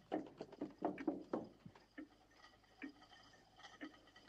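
Footsteps coming down a wooden staircase: light, irregular steps and knocks, closest together in the first second and a half and sparser after.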